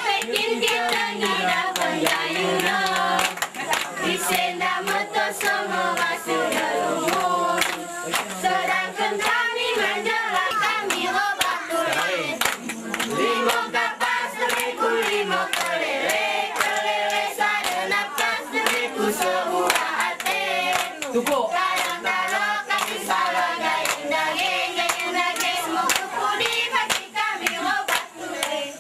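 Group of girls singing a mesekat chant together, with many quick hand claps keeping the rhythm of the seated Alas dance.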